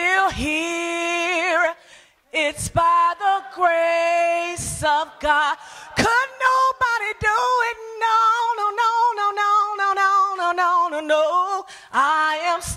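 A woman singing solo into a microphone without accompaniment, holding long notes with a wide vibrato; she breaks off briefly about two seconds in.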